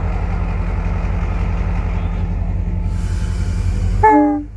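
EMD GL18B locomotive's V8 645 diesel engine running, a steady low hum with rain hissing over it. About four seconds in the engine sound cuts off abruptly and a short, slightly falling pitched note sounds.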